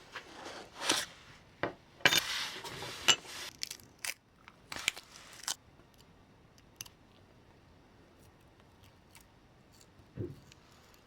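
Small metal parts and tools being handled on a work surface: quick clicks, clinks and short scrapes for about five seconds, then a few faint ticks and a soft knock near the end.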